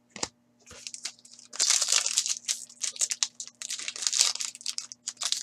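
Plastic and foil card wrapping crinkling and rustling as trading cards are handled by hand. A few light ticks come first, then continuous crinkling from about a second and a half in.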